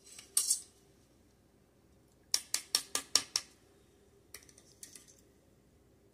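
A plastic drinking straw jabbed up into an upturned bubble tea container, knocking and scraping to dislodge tapioca pearls into a glass. There is a short scrape just after the start, then a quick run of about six sharp taps a couple of seconds in, and a few lighter clicks after.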